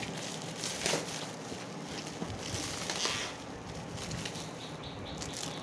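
Plastic shrink wrap crinkling and rustling as hands grip and work at it around a cardboard carton, with louder bursts about a second in and again around three seconds.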